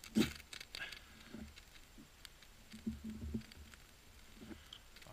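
A few quick scraping strikes of a ferrocerium rod over birch bark tinder, the loudest about a quarter second in, with softer low sounds around three seconds in.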